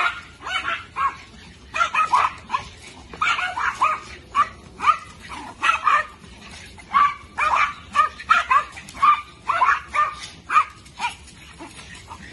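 Several small dogs yapping and barking excitedly, many short high-pitched yips in quick, irregular succession. The yapping stops about a second before the end.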